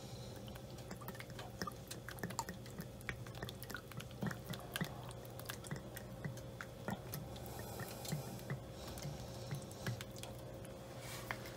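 Faint wet drips and small irregular splats as thick A1 steak sauce pours from the bottle onto a tray of boneless wings, over a low steady hum.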